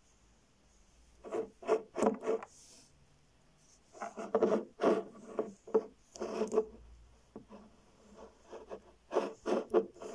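Handling noise from a glass perfume bottle being turned and shifted by hand on a wooden tabletop: short rubbing and scraping sounds in three spells, with quiet between them.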